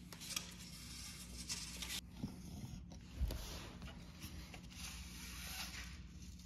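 Faint rustling and light clicking of aluminum mini-blind slats being handled while a string is fed through their holes, with a low thump a little after three seconds in.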